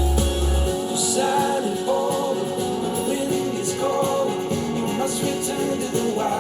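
A music track played back through Edifier bookshelf speakers and picked up by microphones. A deep bass note cuts out under a second in, leaving a lighter melodic passage.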